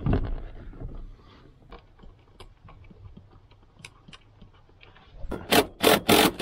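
Scraping and rubbing from handling parts around a car's floor, with scattered light clicks. About five seconds in, a cordless impact driver starts running a bolt in short rapid bursts, about four a second, which is the loudest sound here.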